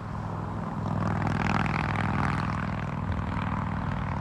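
A heavy engine running steadily, growing louder about a second in and holding there.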